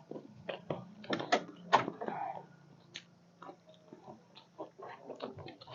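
Someone eating chatpate, a crunchy spiced puffed-rice snack: irregular sharp crunches and clicks of biting and chewing, with a faint steady low hum underneath.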